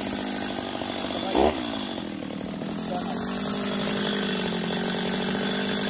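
Stihl MS-210 two-stroke chainsaw running steadily off the wood, with one brief rev about a second and a half in.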